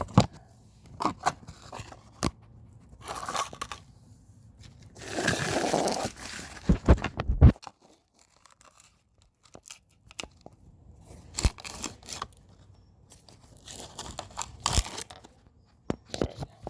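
Handling noise as a phone is set down and small parts are worked by hand: scattered clicks and knocks, a rustling scrape about five seconds in, then a few sharp knocks close together, and single knocks later on.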